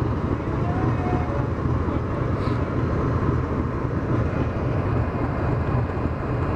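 GEU-40 diesel-electric locomotive idling while standing, a steady, evenly pulsing low rumble.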